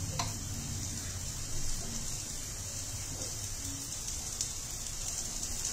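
Ground masala paste sizzling steadily in hot ghee in an iron kadhai, a low even hiss with a few small ticks and pops.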